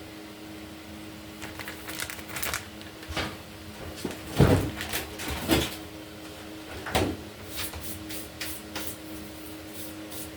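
Knocks and clatter of things being handled in a kitchen, from kitchen cleanup, the loudest about four and a half seconds in, over a steady low hum.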